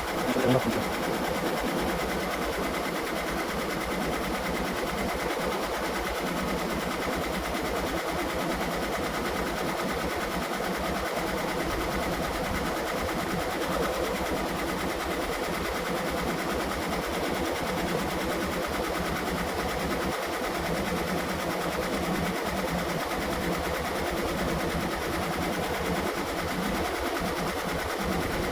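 Car engine idling steadily with the air conditioning running, as it must for a refrigerant recharge.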